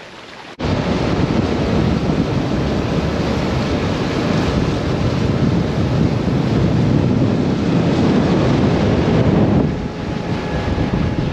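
Wind buffeting the microphone and water rushing past a pontoon boat running at speed, with its Suzuki outboard motor driving underneath. The steady roar starts abruptly about half a second in.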